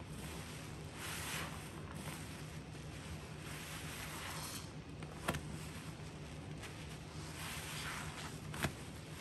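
Bleach water swishing and trickling in three swells about a second long, with two sharp clicks, one midway and one near the end.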